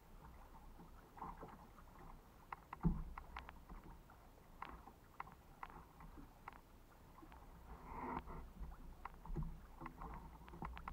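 Water lapping and ticking against a kayak's hull in small, irregular drips and slaps, with one louder knock on the hull about three seconds in and a short splash near the eight-second mark.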